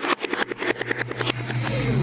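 Hanna-Barbera cartoon sound effect: a fast rattling clatter of clicks, joined about half a second in by a steady low hum, like a cartoon motor running.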